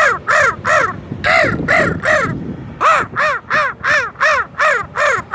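Man imitating an American crow with his voice: harsh caws made with a gargle at the back of the throat. There are two triplets, then a faster run of about eight caws, each rising and falling in pitch.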